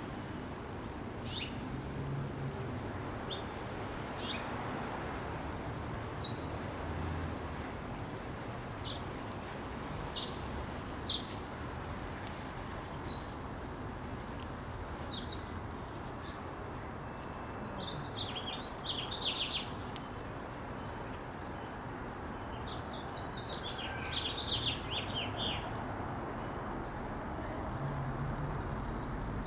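Small songbirds give short, high chip notes scattered throughout, with two brief bursts of rapid twittering in the second half. A steady background hum of environmental noise runs underneath.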